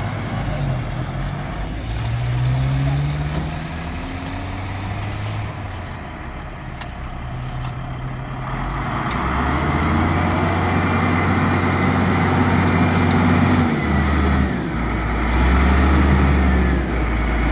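Heavy diesel engine of a tractor or loader running, its pitch rising briefly about two seconds in, then working harder and louder from about nine seconds in.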